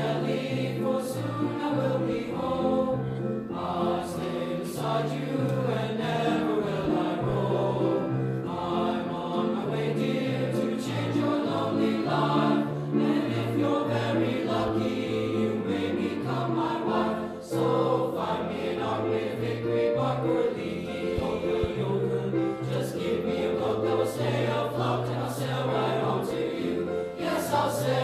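Boys' choir singing in parts, holding notes that change every second or so.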